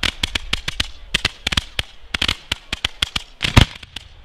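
Fireworks display: a rapid, irregular string of sharp bangs as rounds are fired off, several a second, with one louder, deeper boom about three and a half seconds in.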